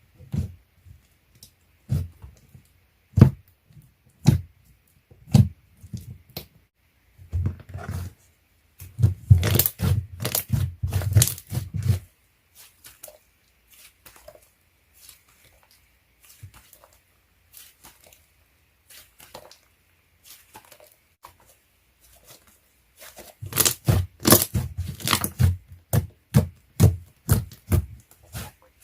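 Slime being squished, stretched and poked by hand: sticky clicks and small pops, scattered at first, coming thick and fast in one run about a third of the way in and again near the end.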